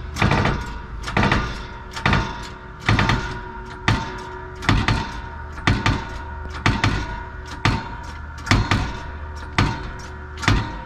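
Hammer blows on a steel part of a wheel bearing assembly, about one strike a second with some quick doubles, each with a short metallic ring.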